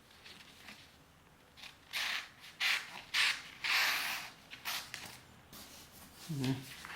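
Knife blade of a pocket multi-tool slicing through paper: several short, papery cutting strokes between about two and five seconds in.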